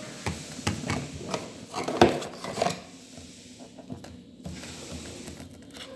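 Hands handling the kit's packaging and small plastic containers: a run of rustles, taps and clicks, the sharpest about two seconds in, then quieter handling for the rest.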